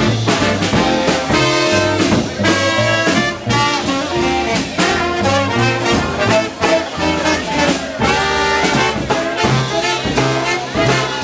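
Live swing band playing an instrumental break, with brass horns carrying held chords over a walking bass line and drums.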